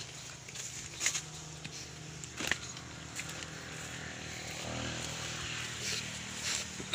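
Footsteps and the swish and crackle of leaves and ferns as someone pushes through dense undergrowth, with a few sharper snaps about one and two and a half seconds in. A steady low motor hum runs underneath.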